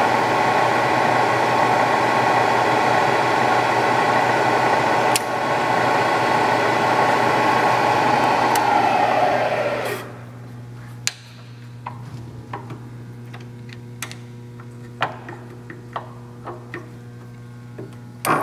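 Bridgeport Series 1 milling machine's 2 hp variable-speed (2J) head running steadily, then switched off about halfway through and winding down over about a second. After that only a low hum remains, with scattered light clicks and knocks as the machine is handled.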